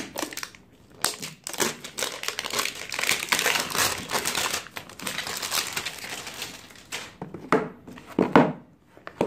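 Clear plastic shrink-wrap crinkling and tearing as it is peeled off a cardboard phone box, a dense rustle lasting several seconds. Near the end come a few knocks, the loudest as the box is turned over on the tabletop.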